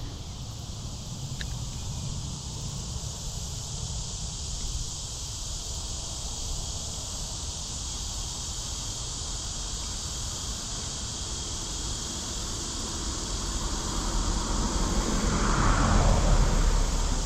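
Steady, high insect chorus in creekside woods, with a low wind rumble on the microphone that swells louder near the end.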